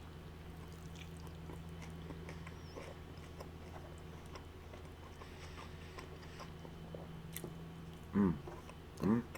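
Quiet chewing and small mouth clicks of someone eating a taco, over a steady low hum. Near the end come two short vocal sounds.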